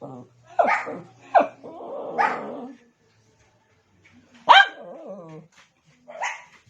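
Shih Tzu barking to get another dog's attention: four quick high barks in the first three seconds with a low growl under the last, then a single bark trailing into a falling whine, and one more bark near the end.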